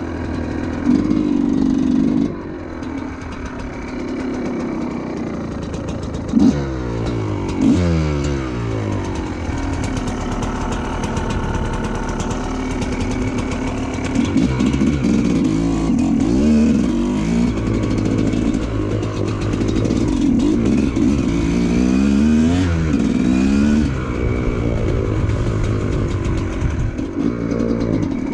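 TM 250EN two-stroke enduro motorcycle engine being ridden, its pitch rising and falling again and again as the throttle is opened and closed and the gears change, with steadier running in between.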